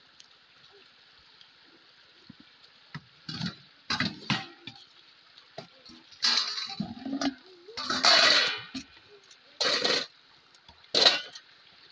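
Wet laundry being lifted and wrung over a plastic bucket of water: splashes and pouring water in about seven short bursts.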